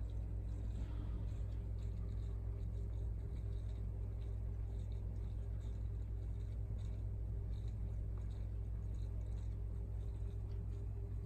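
Steady low hum of running aquarium equipment, with faint bubbling from an air stone.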